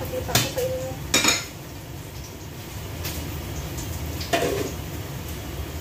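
Dishes and cookware clinking and knocking: three separate clatters, one near the start, another about a second in and the last near the end, over a steady low hum.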